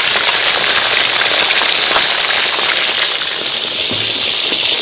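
Hot oil in a wok sizzling and crackling steadily as whole tilapia deep-fry, with a soft low knock about four seconds in.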